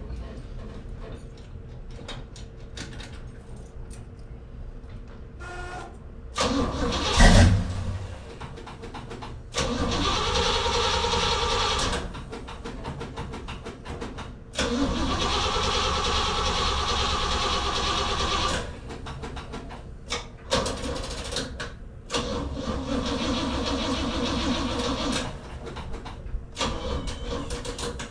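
1968 Pontiac GTO's V8 being cranked by its starter motor in three separate tries of a few seconds each, turning over without catching, with its fuel filter empty; the owner afterwards suspects the battery. A single loud thump comes shortly before the first try.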